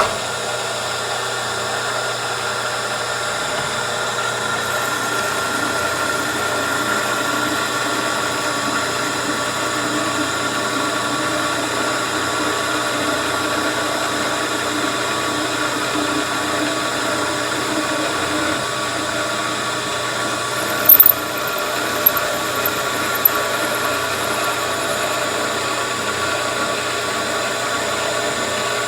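Milling machine running steadily as it reams a hole in a cast-iron engine head, a constant whine with a high squeal. About two-thirds of the way through come a few sharp, loud clicks.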